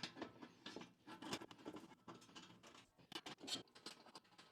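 Faint scraping and irregular small clicks of metal parts being handled as the clean-out cap is worked off a chimney liner kit's clean-out fitting.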